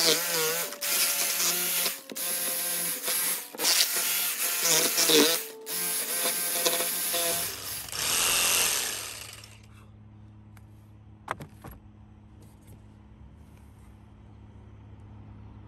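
Ryobi cordless jigsaw cutting a round hole through a metal roof sheet and the wood beneath it, in stop-start runs of one to two seconds. The cutting stops about nine seconds in, leaving a faint low hum and a couple of light clicks.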